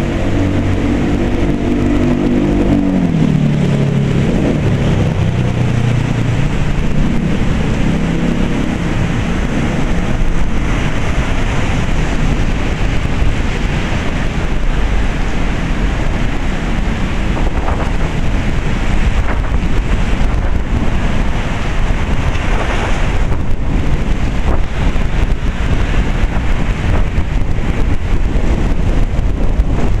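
Heavy typhoon rain pouring down steadily. Over the first few seconds a passing vehicle's engine drone drops in pitch and fades out.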